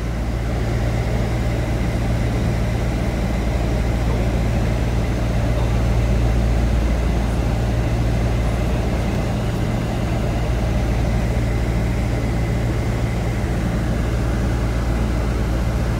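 Bus engine and road noise heard from inside the cabin: a steady low rumble.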